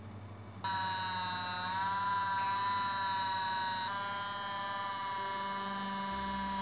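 Cordless rotary tool (Parkside PFBS 12 C3) switched on about half a second in, its motor running at high speed with a steady high-pitched whine. The pitch wavers briefly, then shifts slightly about four seconds in.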